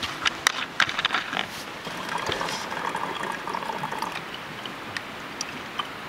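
Water being poured, with several sharp clicks and knocks in the first second and a half.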